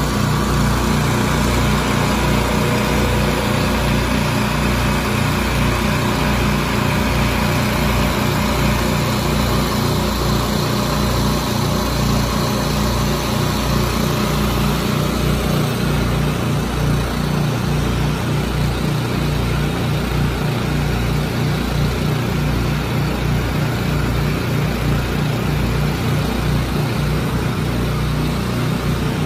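An engine running steadily, with an uneven, pulsing low rumble.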